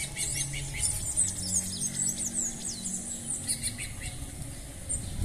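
Many birds chirping together: a busy chorus of short, high, quickly falling chirps.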